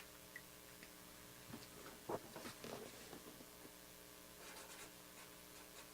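Faint rustles and light clicks over a steady low electrical hum, loudest about two seconds in.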